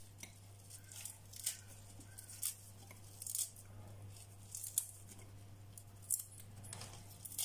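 Mixed salad leaves being torn by hand and dropped into a glass bowl: short, irregular crisp tearing crackles, roughly one a second, over a low steady hum.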